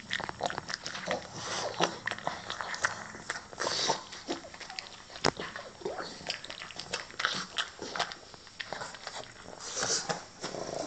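Pug eating from its food dish: irregular chewing and mouth clicks, with short noisy puffs of breath between them.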